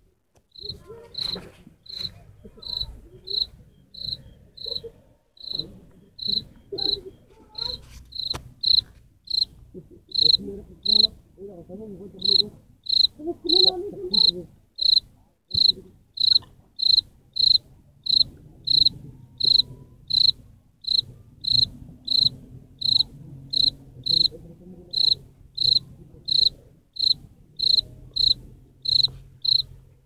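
Field cricket chirping close by, rubbing its wings together: short, clear, high chirps repeated evenly about one and a half to two times a second, with a brief pause about eleven seconds in. Faint rustling underneath, mostly in the middle.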